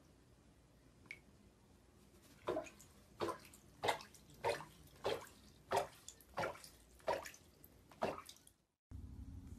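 A white duck dabbling in shallow bathtub water with its bill: a run of about ten quick splashes and drips, evenly paced at a little under two a second, starting a couple of seconds in.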